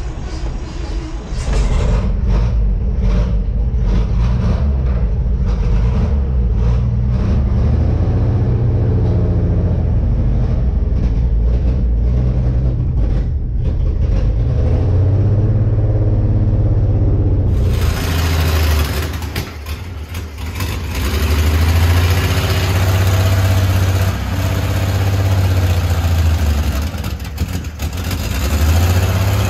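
1956 Chevrolet truck's 235 inline-six running, heard from inside the cab, with the revs rising and falling briefly about two-thirds of the way through. After a cut, the same engine is heard running from outside the truck.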